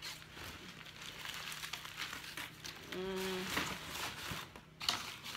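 Paper and packaging rustling and crinkling in irregular bursts as gifts are rummaged through and handled, with a short hummed 'mm' from a woman about three seconds in.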